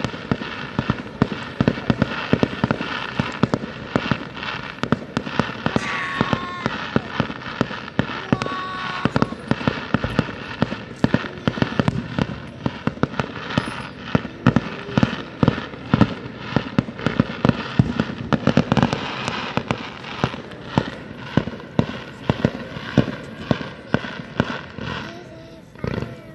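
Aerial fireworks display: a rapid, unbroken run of bangs and crackles from shells bursting, several a second.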